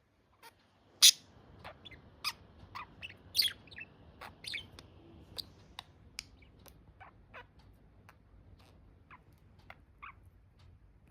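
Pet budgerigars chirping: many short, sharp chirps, the loudest about a second in, coming thickly for the first few seconds, then thinning to scattered single chirps.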